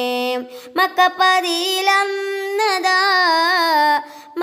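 A boy singing a Malayalam devotional song in praise of the Prophet. A held note ends about half a second in. Then comes a long wavering, ornamented phrase that breaks off near the end.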